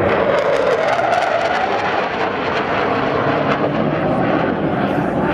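Military jet flying past, its engine noise loud and steady. The pitch rises slightly in the first second and then slowly falls as the jet moves away.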